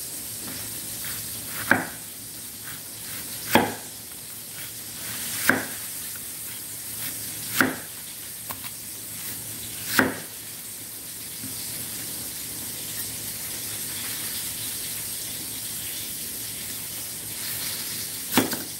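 Chef's knife slicing a large onion into rings on an end-grain wooden cutting board, each cut ending in a sharp knock on the wood: five knocks about two seconds apart, a pause, then another near the end. Under it, a steady hiss of hot frying oil.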